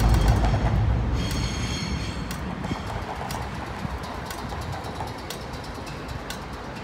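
W-class tram running along its tracks, a low rumble that fades steadily as it moves off. A brief high-pitched tone sounds about a second in, and sharp clicks come roughly once a second.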